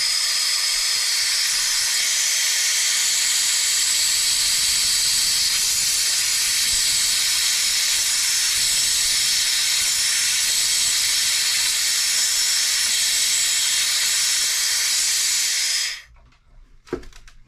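Compressed air hissing steadily through a Stuart 10V vertical model steam engine that will not run. The air blows straight past the slide valve, which the owner takes to be unseated. The hiss stops suddenly near the end as the air is shut off.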